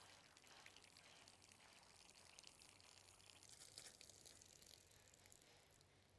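Faint trickling and dripping of water leaking out of a freshly primed 3D-printed impeller pump and its hose.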